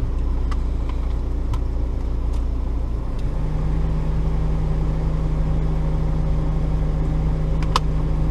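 Steady low mechanical hum like a running engine, with a second steady tone joining about three seconds in. A few light clicks and taps sound over it, the sharpest near the end.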